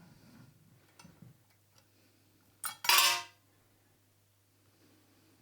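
A few light metal clicks, then a short, loud metallic clatter about three seconds in: hardened steel bearing balls spilling into a tray as the measuring microscope's stage slide comes off its ball guideway.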